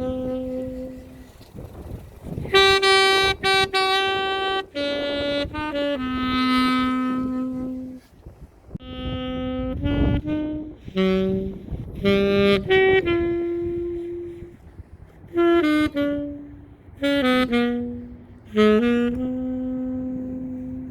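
Unaccompanied alto saxophone playing a slow melody: long held notes and short stepping phrases with brief breaths between them.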